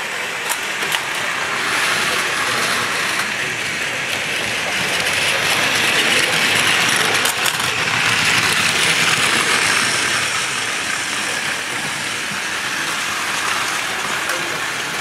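Several Plarail battery-powered toy trains running on plastic track: a steady whirr of small motors and gears with wheels rattling on the rails, and a few sharp clicks. It grows louder from about five to ten seconds in as an E5 Hayabusa shinkansen toy passes close.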